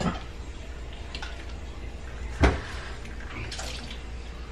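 Kitchen bowl and dish handling: one loud sharp knock about halfway through and a few lighter clicks, over a low steady hum.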